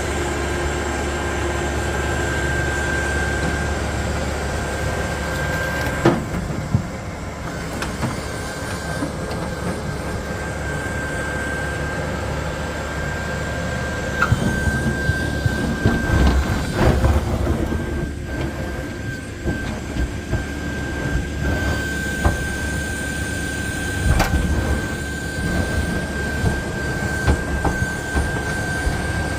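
Wuhlf JX-450 backhoe loader running steadily while digging, with a steady high whine over the engine rumble and occasional knocks and clunks.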